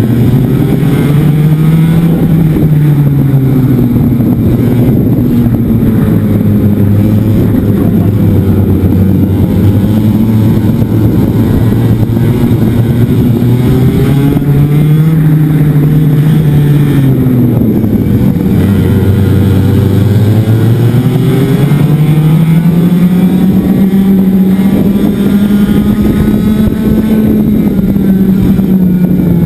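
Racing kart's two-stroke engine heard onboard, its revs climbing as it accelerates and dropping back again into each corner, over and over, with other karts' engines running close by.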